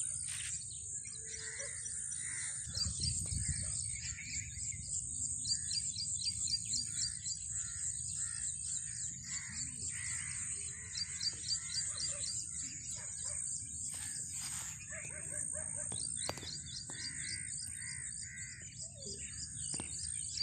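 Birds chirping in the early morning, short calls scattered throughout, over a steady high-pitched insect trill, with a low rumble of wind on the microphone.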